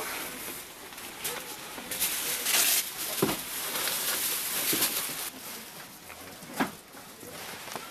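Crinkling and rustling of a foil emergency blanket and clothing as rescuers handle a trapped casualty, loudest in the middle, with a few sharp knocks.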